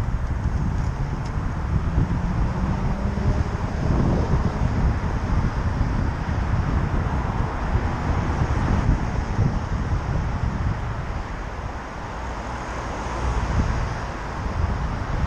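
Wind rumbling on the microphone of a moving bicycle, with road traffic in the background.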